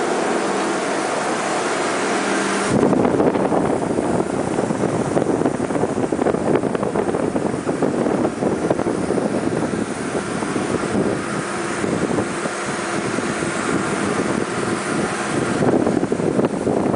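Steady machinery noise on a container ship's deck: a hum with a few steady tones at first, then about three seconds in a louder rushing noise takes over, with wind on the microphone.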